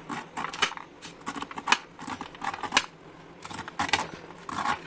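A sharp knife slicing kernels off a fresh sweet corn cob: a run of short, crisp cutting strokes, a little under two a second.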